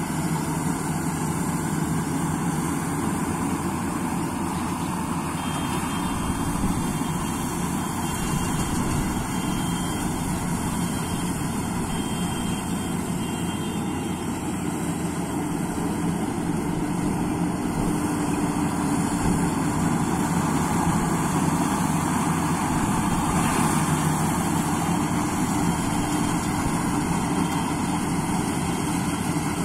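Tracked combine harvester running steadily while it cuts ripe paddy, its engine and machinery making a continuous drone that grows slightly louder past the middle.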